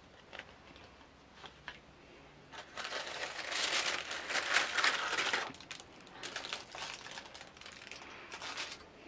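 Tissue paper rustling and crinkling as it is lifted out of a cardboard box. The crinkling is loudest for a few seconds in the middle, then trails off into lighter crinkles.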